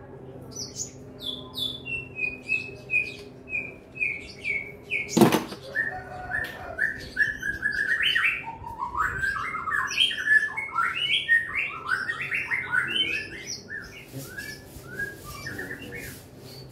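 A songbird singing: a run of short repeated chirps, each dropping slightly in pitch, then a longer varied warbling phrase. A single sharp knock comes about five seconds in, with a faint steady hum underneath.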